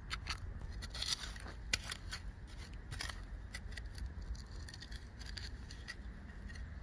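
Light, irregular scratching and clicking: hands handling freshly dug potatoes and soil.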